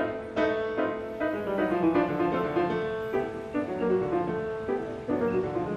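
Piano music, single notes struck one after another at an even pace over a repeated held tone.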